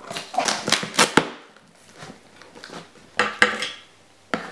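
Scissors cutting the packing tape of a cardboard box: a cluster of sharp snips and scrapes in the first second or so, another about three seconds in, and a single click near the end.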